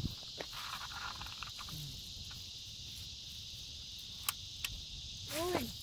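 Steady high-pitched chorus of insects, typical of crickets, with a few faint clicks and a short pitched call near the end.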